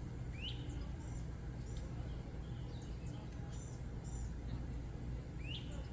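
Small birds chirping, with a short rising call about half a second in and again near the end, over a steady low rumble.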